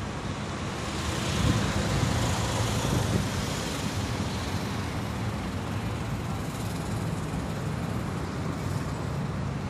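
Wind buffeting the microphone over a steady low rumble, swelling about a second in and then holding steady.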